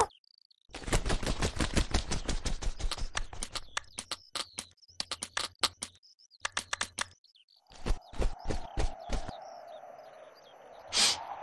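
Cartoon sound effect of beaks pecking at crumbs: a fast, dense run of dry clicks, many a second, lasting about six seconds. After a short pause, sparser clicks return over a steady hum, and a brief hissing burst comes near the end.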